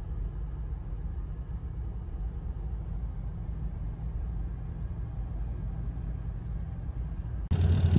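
Toyota LandCruiser V8 4WD driving: a steady low rumble of engine and road noise. Near the end it switches abruptly to a louder, steadier engine hum.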